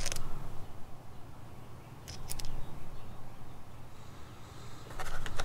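A few light clicks of small screws being handled and set into a Kawasaki Vulcan 500 carburetor: one at the start and a quick pair about two seconds in, over a low steady background rumble.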